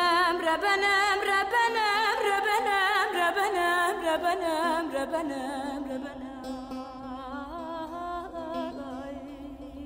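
Solo voice singing a slow, ornamented melody with wide wavering turns of pitch over a steady held drone. It grows quieter after about five or six seconds.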